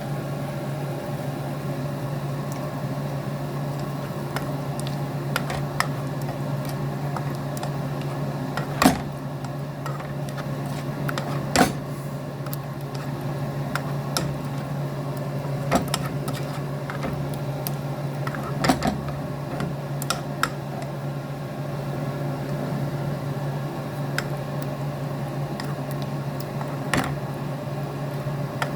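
A steady low mechanical hum, with a few sharp knocks of a cooking utensil against the pan, about six scattered through the stretch, as the chicken is stirred in cream.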